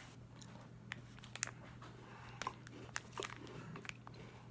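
Shopping items and bags being handled: a few faint scattered clicks and light crinkles over a low steady hum.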